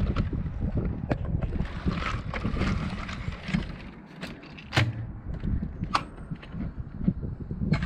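Wind buffeting an action camera's microphone in a steady low rumble, with irregular sharp clicks and knocks, the loudest a little past halfway.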